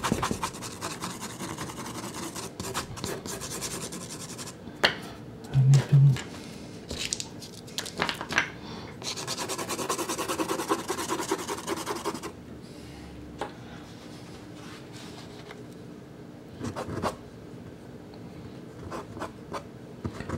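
Soft Sennelier pastel stick scratching and rubbing across Sennelier La Carte pastel card in many short strokes, louder for the first twelve seconds or so and fainter after. There is a brief louder low sound about six seconds in.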